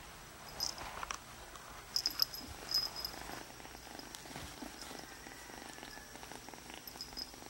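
Kitten purring steadily, with a few short sharp clicks in the first three seconds.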